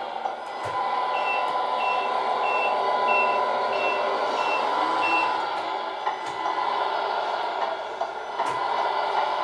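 Sound unit of a 1/14 RC MAN TGX 8x4 tipper truck playing a simulated diesel engine through its speaker while the truck reverses, with a reversing beeper sounding about seven short even beeps, roughly one and a half a second, that stop about five seconds in. Two short sharp sounds come later.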